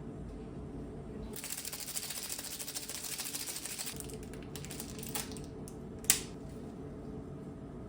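A rapid run of small clicks for about three seconds, then a few scattered clicks and one sharp tap about six seconds in, over a low steady hum.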